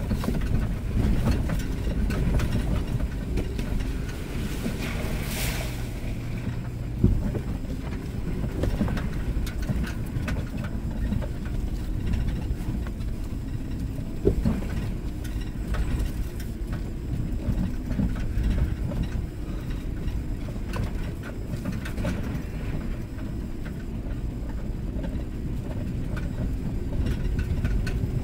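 Cabin sound of an SUV crawling a dirt off-road trail: a steady low engine-and-tyre rumble with knocks and rattles from the body over bumps, the sharpest about seven and fourteen seconds in. A brief hiss comes about five seconds in.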